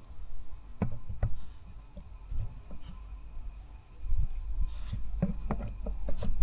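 Scattered light knocks, taps and rubbing, like things being handled, with a low rumble that grows louder about four seconds in.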